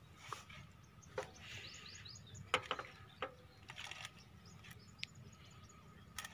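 Faint bird chirps over a low outdoor background hiss, with a few soft, sharp clicks scattered through.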